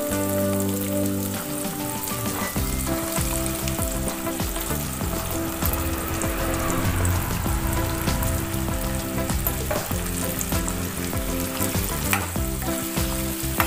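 Sliced ginger sticks being added to hot mustard oil in a kadai, frying with a steady sizzle. A metal spoon scrapes and taps the pieces off the board into the pan, adding many small clicks.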